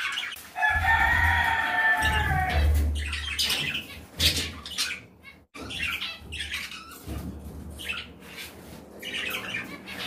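Budgerigars flapping and fluttering inside a wire cage as a hand reaches in to catch a hen, with a long squawk near the start. Many short clicks and rattles of the wire follow.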